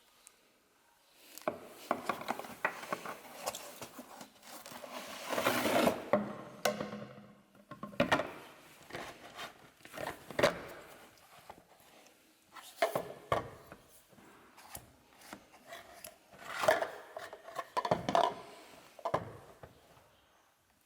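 Hands unpacking and handling a boxed product: rubbing and scraping of packaging, with sharp clicks and knocks every few seconds. The loudest rubbing comes about a quarter of the way in.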